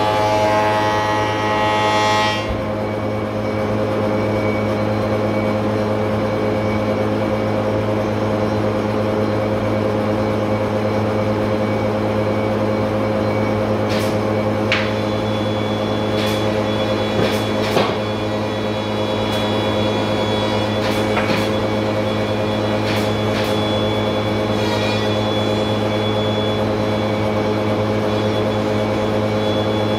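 Spindle moulder cutting a skirting-board profile, the cut ending abruptly about two seconds in; the spindle moulder and dust extractor keep running with a steady hum, with a few faint clicks and knocks in the second half.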